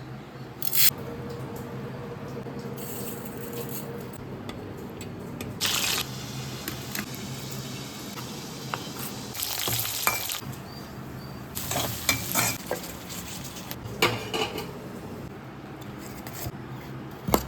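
Food frying in a pan with a steady sizzle, stirred with a spatula that scrapes and clatters against the pan every couple of seconds.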